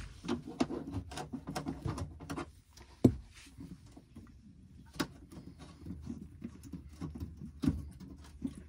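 Irregular small clicks, taps and scrapes of a hand working a just-loosened brass compression nut on a copper heating pipe, with a few louder knocks about three, five and nearly eight seconds in.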